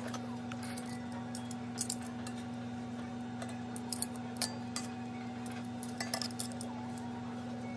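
Metal kitchen tongs clinking and tapping against a cast iron skillet as pieces of baked eggplant and salmon are moved, a dozen or so light, irregular clicks over a steady hum.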